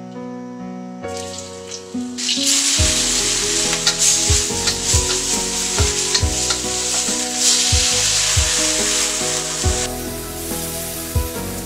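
Whole shrimp frying in hot oil in a wok, with a loud, steady sizzle that starts about two seconds in, as a spatula presses them to release their oil. Background music with a steady beat plays underneath.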